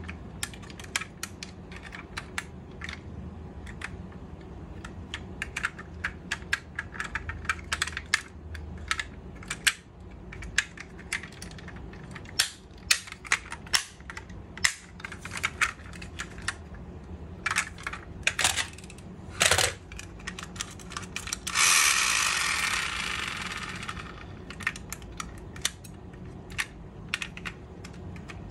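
Small diecast metal-and-plastic model cars handled in the hands: a steady run of light clicks and taps as the opening doors and parts are moved and the models are turned over. About three-quarters of the way through comes a single rushing scrape of about two seconds that fades away.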